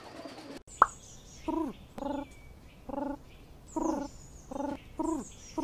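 Pigeons cooing: a run of about seven short, low hooting notes, some falling at the end, roughly two a second. There is one sharp squeak about a second in, and faint high falling whistles over the coos.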